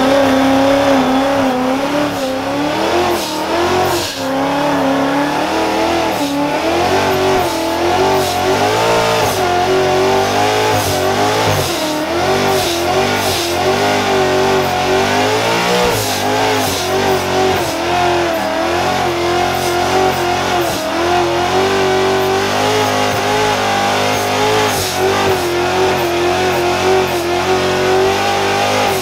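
Modified Ford Mustang's engine held at high revs during a burnout, the revs wavering up and down without letting off while the rear tyres spin and smoke.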